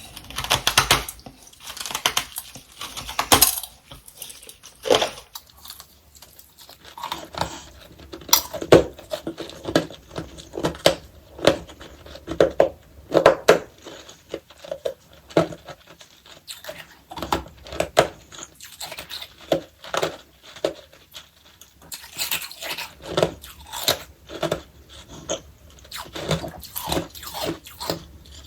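Close-miked crunching and chewing of powdery freezer frost: irregular crisp bites and chews, about one to two a second, with louder, denser crunching near the start and again about two-thirds of the way through.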